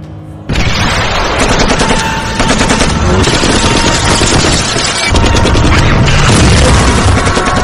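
Dubbed gunfire sound effect: a dense, rapid run of shots that starts abruptly about half a second in and keeps going, loud.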